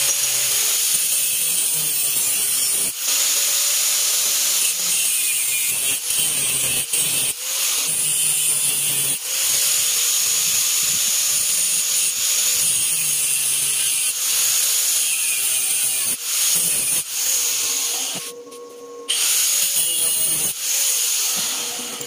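Electric angle grinder with a thin cut-off disc cutting through steel pipe held in a vise: a loud, steady grinding whine. About 18 seconds in the disc comes off the metal briefly and only the motor's free-running whine is left, then the cut resumes and dies away near the end.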